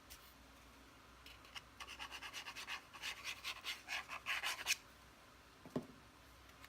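Cardstock being handled and rubbed by hand: a run of quick scratchy rubbing strokes lasting about three seconds, then a single light knock.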